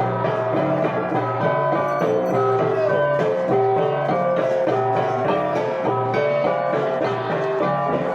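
Music: a running melody of plucked-string notes over a steady bass line.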